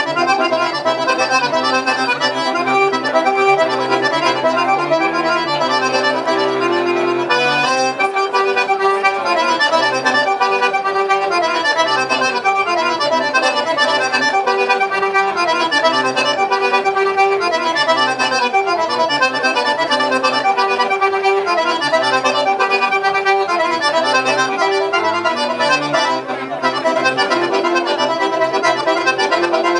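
Traditional Sardinian folk-dance music played on an accordion: a continuous dance melody over a low held note.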